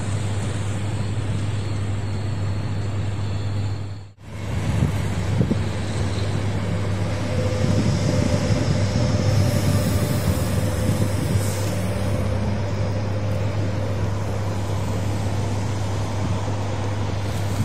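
Locomotive-hauled double-deck passenger train running past on the tracks below, over steady city traffic noise. The train's rumble swells from about eight seconds in and eases off again. The sound drops out briefly about four seconds in.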